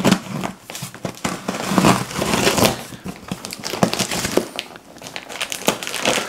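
Cardboard shipping box being cut open: a blade slicing through packing tape, with the tape and cardboard flaps crackling and scraping in irregular bursts.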